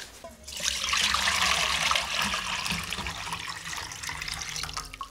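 Hotpot broth poured from a takeout bowl into a stainless steel pot: a steady splashing pour that starts about half a second in and slowly tapers off near the end.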